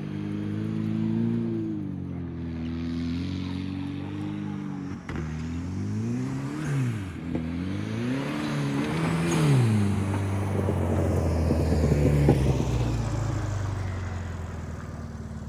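Turbocharged Nissan Datsun 720 pickup's engine running, blipped up and down three times about halfway through, then held while a loud rushing noise builds to a peak a couple of seconds before the end.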